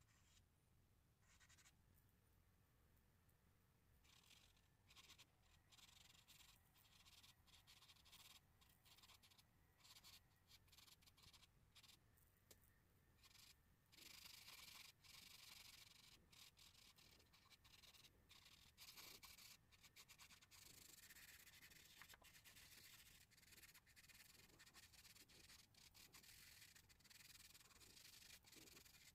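Faint scratching and rubbing of charcoal on drawing paper in many quick strokes, getting louder about halfway through.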